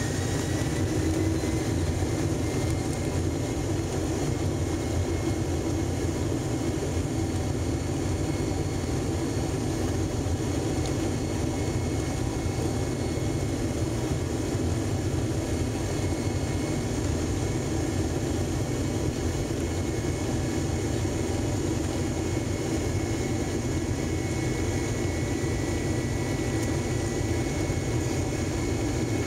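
Boeing 767-300's jet engines running, heard from inside the passenger cabin as the airliner moves on the ground: a steady engine drone with a deep rumble beneath it and a high whine that rises slightly in pitch about a second in.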